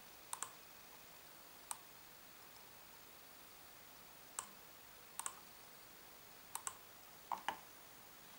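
Computer mouse button clicks, about ten sharp clicks spread through, several in quick pairs like double-clicks, the loudest pair near the end, over a quiet room hush.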